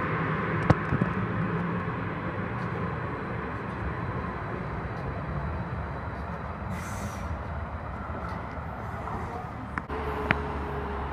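Calgary C-Train light-rail cars running at the platform: a steady low hum and rumble, with a few sharp clicks about a second in and a short hiss about seven seconds in. Near the end the sound changes to a steadier, quieter platform hum.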